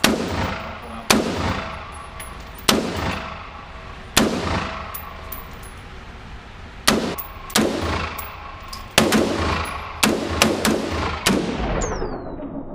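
Gunshots at a shooting range: about eleven shots fired at an uneven pace, several coming in quick succession near the end, each followed by an echoing tail.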